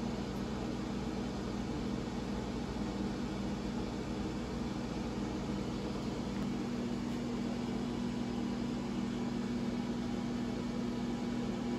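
Gourmia air fryer running mid-cook: a steady fan hum with a low steady tone, which grows a little stronger about halfway through.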